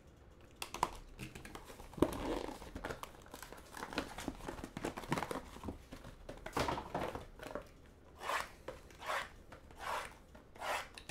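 Plastic shrink wrap on a trading-card box being slit with a box cutter and torn away, crinkling, then a run of short plastic rustles, about one a second, as the wrapped packs inside are lifted out and handled.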